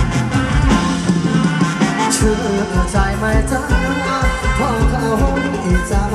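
Live band playing Thai ramwong dance music with a steady beat, with a singer's voice over it.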